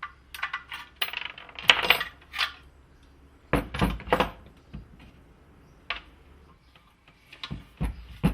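Small metal parts of a pneumatic framing nailer clinking and clattering as they are handled during its teardown: several clusters of sharp clicks, with a few heavier knocks about three and a half seconds in and again near the end.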